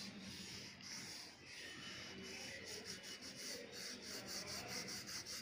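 Light blue coloured pencil scratching over a paper book page as the area is shaded in, faint at first, then settling into quick back-and-forth strokes, about four a second, from about halfway through.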